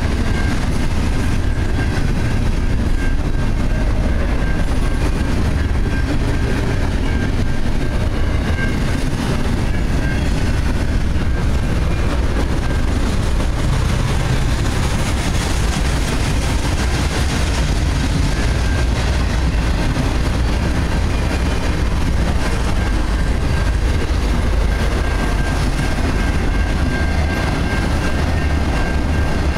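Intermodal freight cars rolling past at close range: a steady, unbroken rumble of steel wheels on rail. A faint high tone comes and goes through it.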